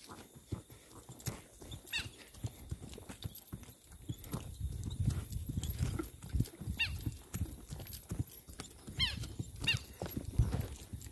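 Hooves of a ridden horse walking over dry, hard dirt, an uneven clip-clop of knocks. A low rumble joins from about four seconds in, and a few short falling whistles sound now and then.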